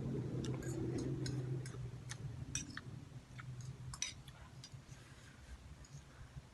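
Close-miked eating sounds: a string of small sharp clicks and smacks from chewing and a utensil handling cup noodles. Under them is a low hum that fades out about halfway.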